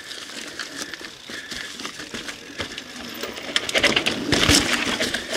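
Mountain bike rolling over a dry dirt trail strewn with leaves and twigs: tyres crunching with rapid clicking and rattling from the bike, growing louder about three and a half seconds in and loudest a second later.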